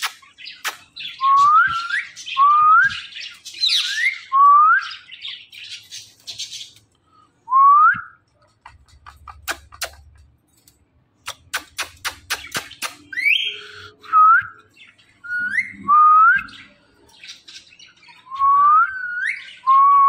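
Indian ringneck parrot whistling over and over, each whistle a short upward glide, along with scratchy chatter in the first few seconds and quick runs of clicks around the middle.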